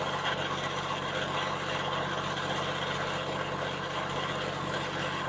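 A motor running steadily at idle, a constant low hum with an even hiss over it that does not change.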